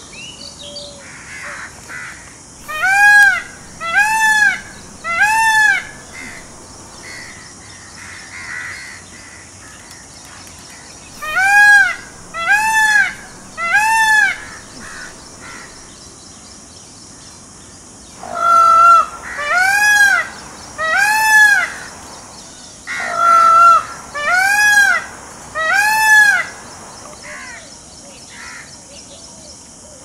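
Indian peafowl (peacock) calling loudly, a wailing call that rises and falls in pitch. The calls come in four runs of three, each call a little over a second after the last.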